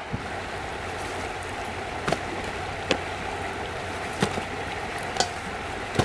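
Steady rush of river water flowing over rocks, with about five short sharp clicks scattered through it.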